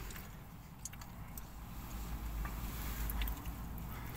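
Quiet inside a car: a low steady hum with a few faint clicks and rustles from two people eating burgers out of foil wrappers.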